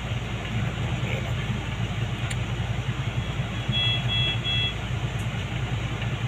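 A steady low mechanical hum, with a bedside medical monitor sounding three short electronic alert beeps about three seconds in.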